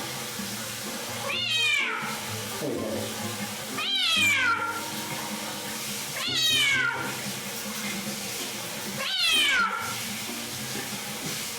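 A hachiware (tuxedo) cat yowling loudly four times, about every two and a half seconds, each long cry starting high and falling in pitch: frightened wails at being bathed. Behind it runs a steady hiss.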